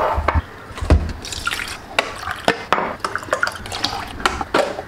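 Water poured from a ceramic mug into a drip coffee maker's water reservoir, amid clinks and knocks of the mugs being handled.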